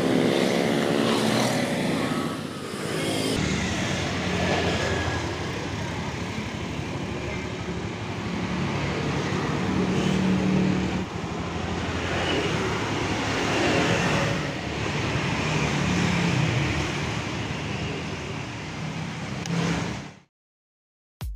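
Motor scooter engine running amid street traffic, with a vehicle passing and its pitch falling in the first couple of seconds. The sound fades out about a second before the end.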